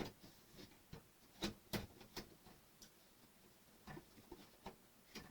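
Faint, scattered clicks and taps of model kit parts being handled and pushed into place, a few sharp clicks among quieter ones.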